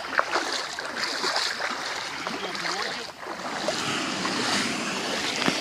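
Small sea waves washing and lapping onto a shingle shore.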